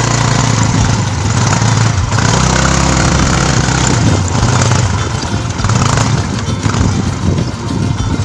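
A motor vehicle engine running steadily, with a noisy rush over it; the engine note shifts lower for a couple of seconds about two seconds in.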